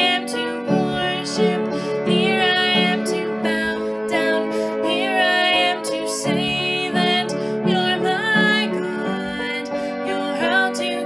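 A woman singing a slow song with vibrato over instrumental accompaniment.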